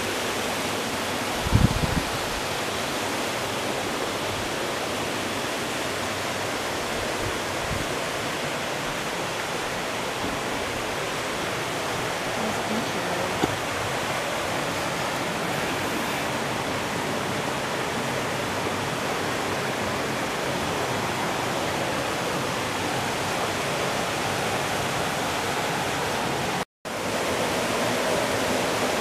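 Steady rush of river water running over rocks and small cascades. A brief low thump about a second and a half in, and the sound cuts out for an instant near the end.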